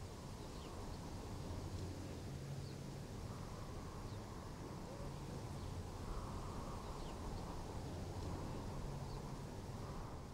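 Quiet outdoor country ambience: a steady low hum under a faint wash of background noise, with a few soft, high bird chirps about every two seconds.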